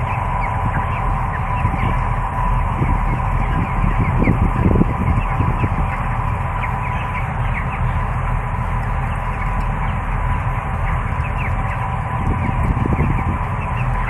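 A large flock of 21-day-old broiler chickens peeping and calling continuously over the steady hum of the shed's ventilation fans.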